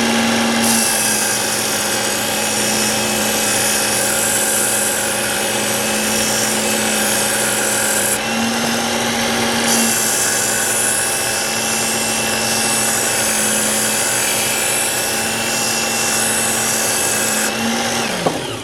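Ken Onion Work Sharp electric belt sharpener running with its steady motor hum while a knife blade is drawn along the abrasive belt in two long passes, each a bright grinding hiss. The motor spins down near the end.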